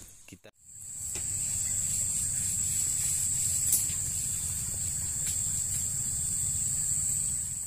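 Steady evening chorus of insects in tropical forest: a constant high-pitched drone over a low rumble, starting about half a second in.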